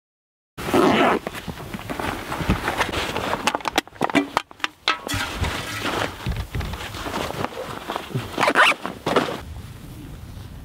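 Close-up handling noise of a backpack and hunting gear: fabric rustling, straps and buckles shifting, with scattered clicks and a few louder rasps, starting suddenly about half a second in. Footsteps in dry grass come in near the end.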